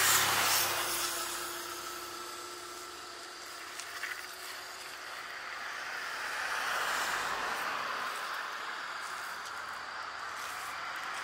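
Road traffic passing: a rush of vehicle noise that peaks right at the start, its pitch dropping as it goes by, then fades, and another swells up and falls away from about six seconds in.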